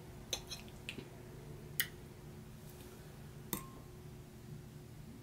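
A metal fork clinking lightly against a plate and a glass bowl of hot sauce: about five short clicks, the last with a brief ring.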